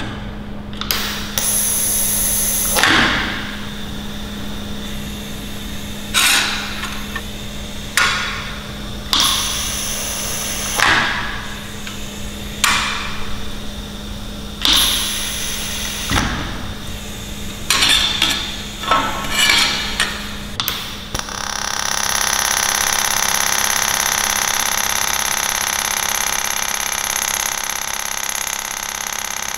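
TIG welding arc under a closed nozzle: about a dozen short arc bursts, each starting sharply and fading within a second, over a low hum. About 21 seconds in, a steady arc takes over, a continuous hiss with a steady whine in it.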